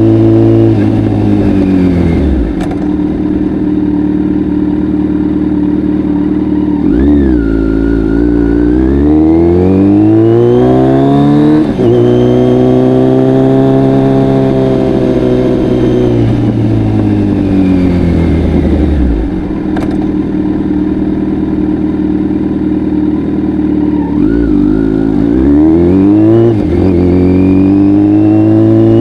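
Kawasaki Z900's inline-four through an Akrapovic full exhaust, the engine note dropping off at the start, climbing over a few seconds of acceleration, holding high, easing off again, then climbing once more near the end.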